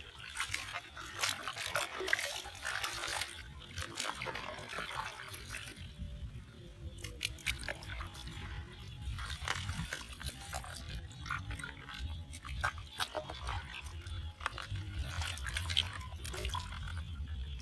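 Hands splashing and rummaging through live crabs in a plastic bucket of muddy water, with many short clicks and crunches.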